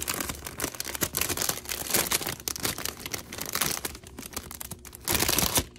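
Crinkly packaging being handled, a rapid run of crackles and rustles, with a louder stretch of crinkling shortly before the end.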